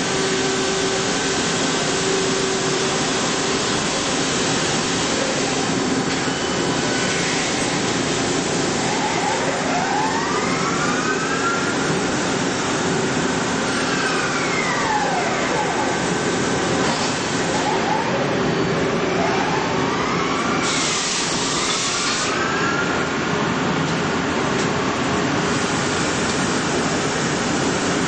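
CNC lathe running: a steady rush of machine noise, with a motor whine that sweeps up in pitch and back down several times midway, as the spindles speed up and slow down.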